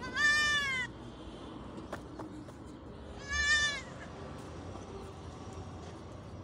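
Goat kid bleating twice: two short, high bleats about three seconds apart, the first falling in pitch at its end.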